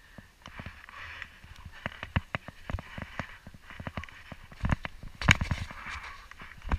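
Skis scraping and clattering down hard, chopped-up snow on a steep slope, with a quick series of sharp knocks as the skis and poles hit the lumps; the knocks come thickest and loudest about five seconds in.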